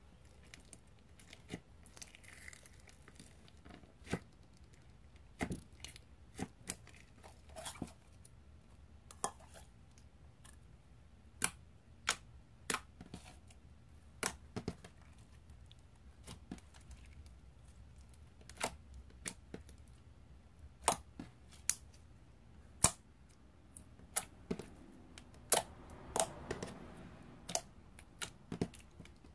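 Jelly cube slime being poked and pressed by hand, making scattered sharp clicks and pops, more of them near the end.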